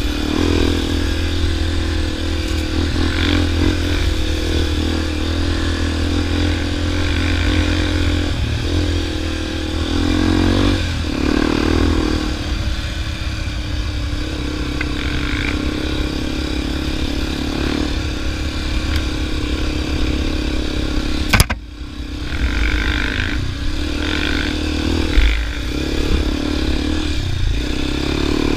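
Dual-sport motorcycle engine running under way on a sandy dirt track, its pitch rising and falling with the throttle. A single sharp knock comes about 21 seconds in, after which the engine sound briefly drops away before picking up again.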